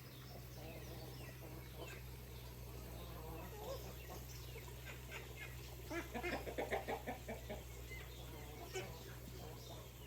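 Chickens clucking, with a quick run of clucks about six seconds in, over a low steady hum.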